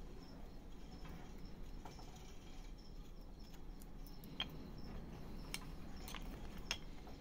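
Small carving knife whittling wood by hand: quiet slicing and scraping of the blade, with a few sharp little clicks as cuts snap through, mostly in the second half.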